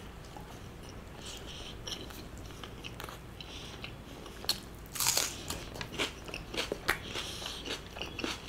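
Close-miked eating: a person chewing mutton curry with paratha, with a stream of small wet mouth clicks and lip smacks. It gets louder about five seconds in and again near the end.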